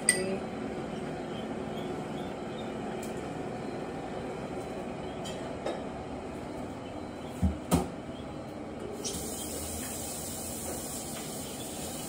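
Kitchen handling sounds: a ringing glassy clink at the start, a few light ticks, then two dull knocks in quick succession about seven and a half seconds in, over a steady low background hum. A faint hiss sets in near the end.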